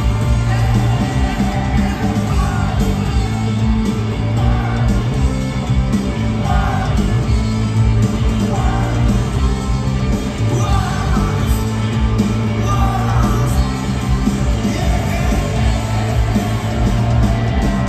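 Rock band playing live, with electric guitars and a male lead singer singing over the full band.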